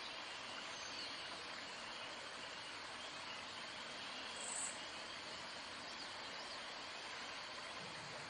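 Faint, steady outdoor pond ambience with insects chirping, and a brief high-pitched sound about four and a half seconds in.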